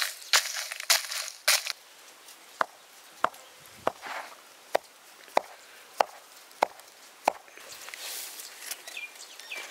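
A knife chopping on a wooden board: about eight sharp, evenly spaced strokes, roughly three every two seconds, beginning a couple of seconds in. There is rustling at the start and again near the end.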